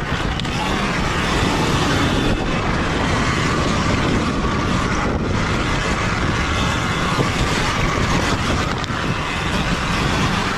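Sur-Ron Ultra Bee electric dirt bike ridden fast over a rocky dirt trail: a steady rush of wind on the rider's camera microphone over the rumble and rattle of tyres and chassis on loose stones, with no engine note.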